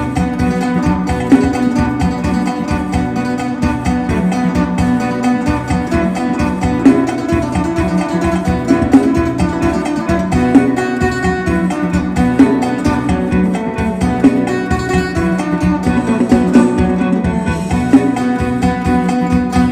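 Isan phin, the northeastern Thai plucked lute, playing a fast lam sing melody with rapid picked notes over a steady drone.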